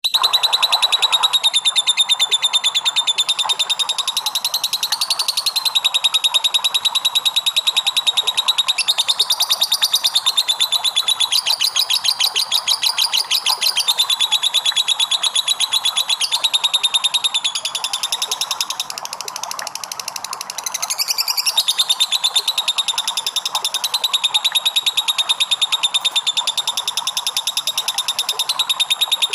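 Lovebird singing 'ngekek': one long, unbroken, high-pitched chattering trill of very rapid repeated notes. It softens for about two seconds past the middle, then comes back at full strength.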